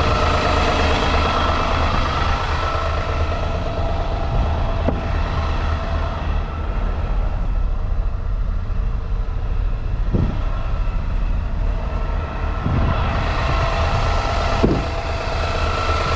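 Engine of a tow-behind sewer jetter running steadily during high-pressure jetting. Its higher tones fade for a few seconds mid-way and come back, and there is a single sharp knock near the end.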